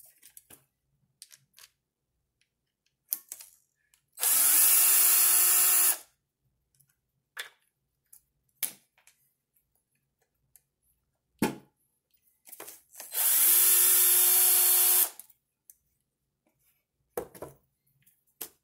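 Electric power driver run twice, about two seconds each time, its motor whine rising briefly as it spins up and then holding steady, backing screws out of an RC truck's front end. Small clicks and taps of parts being handled come between the runs.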